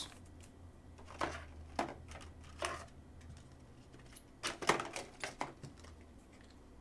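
Trading cards being handled and slid against one another, giving a scattered run of soft clicks and taps, busiest about two-thirds of the way in, over a faint low hum.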